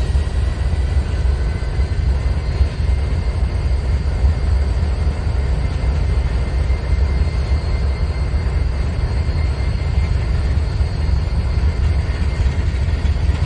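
Diesel freight locomotives, a Norfolk Southern unit coupled to a Union Pacific unit, running with a steady low engine rumble and a faint steady whine above it.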